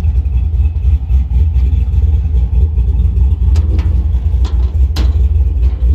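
Supercharged 5.3-litre V8 of a custom 1964 Ford F100 idling with a deep, uneven exhaust rumble. Two sharp clicks come in the second half.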